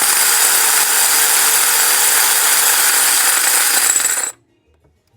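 Power tool with a socket adapter spinning out the loosened cam phaser bolts on a Jeep engine, a loud steady whir that cuts off about four seconds in.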